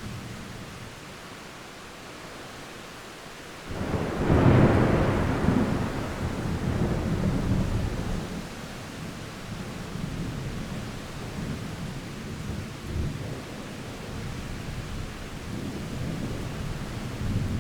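Thunder over steady rain: a sudden loud clap about four seconds in, followed by a long rolling rumble that swells again near the end.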